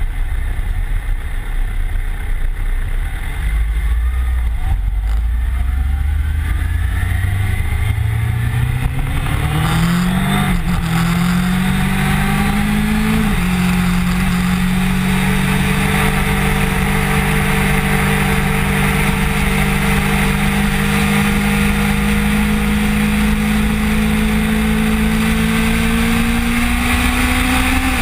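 Kawasaki Ninja motorcycle engine accelerating through the gears: its pitch starts low, climbs from about four seconds in, drops at shifts around ten and thirteen seconds in, then holds nearly steady with a slow rise while cruising. Heavy wind rumble on the bike-mounted camera's microphone runs underneath.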